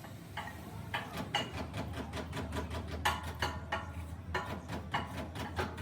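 Metal tools and engine parts clinking and knocking at irregular intervals, a dozen or so sharp ringing hits, over a low steady hum.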